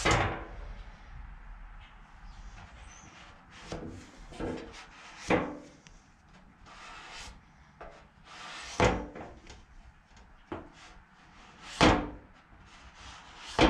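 Plastic body-filler spreader working red glazing putty onto a car's primered quarter panel: short scrapes of the spreader over the panel, broken by a few sharp knocks several seconds apart.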